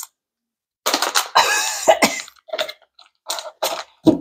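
A person coughing in a run, with a longer bout about a second in followed by several short coughs, set off by the chili heat of spicy chips.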